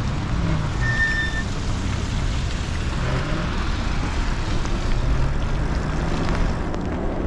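E-bike tyres swishing over wet pavement in the rain, under a steady low rumble. A short high tone sounds once about a second in.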